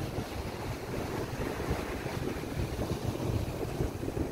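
Wind buffeting the microphone over the steady wash of the sea at the shoreline.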